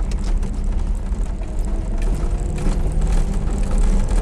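IZh-2717 van on the move, heard from inside the cab: steady engine and road rumble with a faint whine, plus scattered clicks and rattles from the body.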